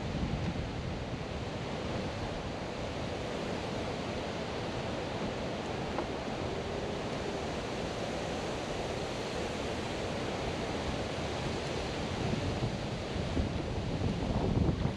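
Wind buffeting the microphone: a steady rushing noise, with heavier low gusts near the end.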